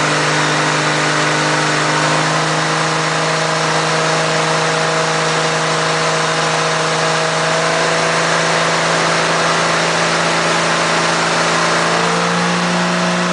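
Motorboat engine running steadily under way, over a loud steady rush of wind and water. The engine's pitch rises slightly near the end.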